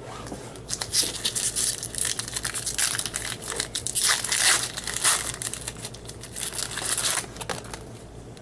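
Foil wrapper of a trading card pack being torn open and crinkled, a dense crackling rustle that dies away about a second before the end.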